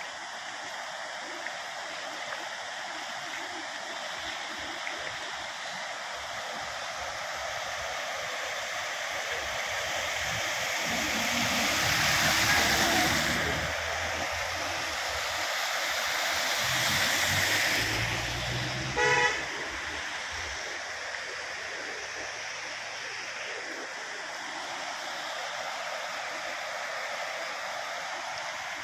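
Steady rush of flowing floodwater, with two vehicles passing close, swelling up around 12 and 17 seconds in, and a short vehicle horn toot about 19 seconds in.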